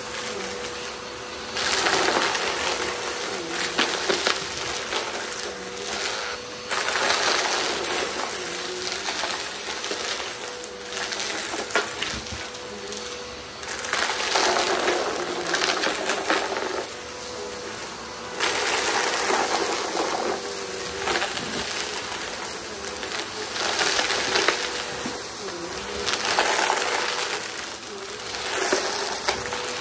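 Upright bagless vacuum cleaner running with a steady motor hum, pushed back and forth over a rug. It sucks up a pile of small rubber bands, hair and debris that crunch and rattle into the dustbin. The crunching noise swells with each pass, every few seconds.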